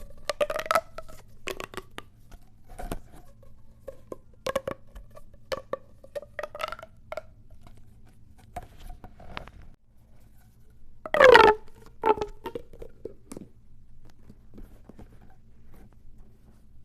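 Pop tube fidget toy, a corrugated plastic tube, being handled: scattered plastic clicks and pops. About eleven seconds in comes one loud stretch with a falling, ratcheting pitch.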